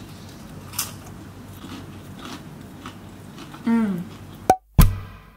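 A person eating rice cakes topped with mashed avocado and egg: soft bites and chewing, then a falling hummed 'mmm' of enjoyment almost four seconds in. Near the end the sound cuts out briefly and acoustic guitar music begins.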